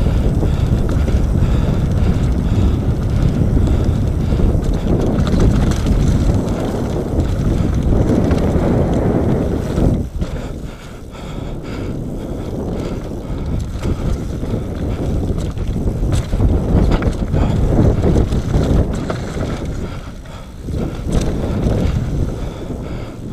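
Wind rushing over the action-camera microphone, mixed with tyre noise and the rattle of a Nukeproof Mega 275 enduro mountain bike descending a dirt trail at speed, with scattered knocks from the bike. The noise eases briefly about ten seconds in and again near twenty seconds.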